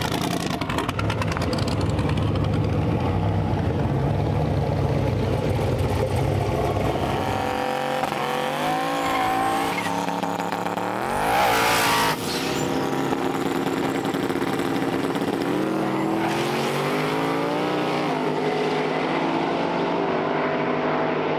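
Turbocharged no-prep drag cars, a twin-turbo LS-powered Mustang and a Chevy S10 pickup, running loud through a burnout. A heavy rumble gives way to rising engine revs, with one big rising sweep about eleven seconds in as a car launches and pulls away, then more rising revs later on.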